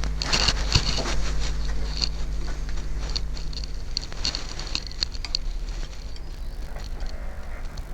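OO gauge model locomotive running under power on a model railway track: a steady low motor hum with rapid clicking and rattling of wheels on the rails, which thins out after about five and a half seconds.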